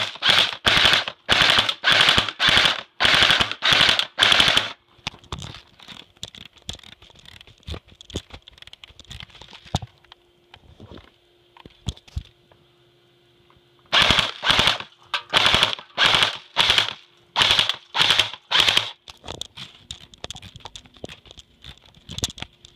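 Airsoft rifle firing rapid bursts, about two bursts a second in a string of around five seconds, then after a pause with a few faint clicks, a second string of bursts starting about 14 seconds in.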